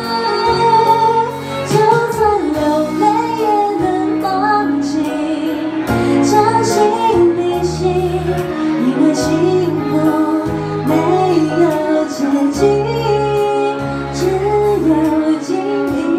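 A woman sings a slow pop ballad into a microphone, accompanied by keyboard and violin. Her melody line moves over held bass notes.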